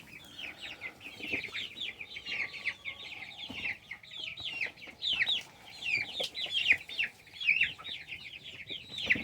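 A flock of young Cornish cross meat chickens peeping all together: many short, high chirps that each fall in pitch, overlapping without a break.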